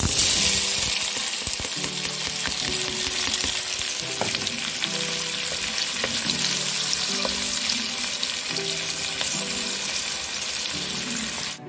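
Chopped onion and green pepper sizzling in hot melted lard in a pot while a wooden spoon stirs them. The sizzle starts suddenly as the vegetables hit the fat, is loudest right at the start, then settles into a steady fry.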